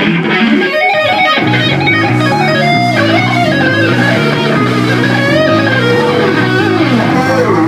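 Electric guitars and bass guitar playing together in a loose band jam, a lead guitar bending notes over steady bass notes.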